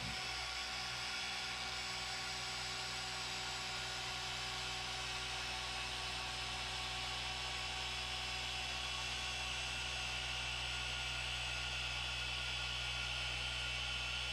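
Electric machine polisher running steadily with a foam pad and cutting compound on a car's painted fender: a constant motor hum and whir, even in pitch throughout.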